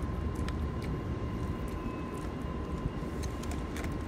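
Steady low rumble with a thin steady tone above it, and a few light clicks of forks against plastic food containers.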